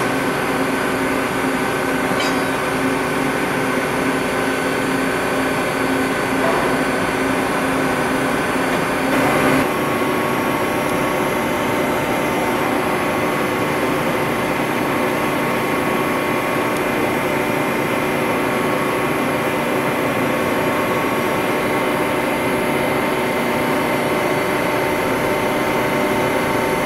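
Peddinghaus TDK 1000/3G beam drill line standing under power, giving a steady machinery hum with several steady tones; the mix of tones shifts about nine and a half seconds in.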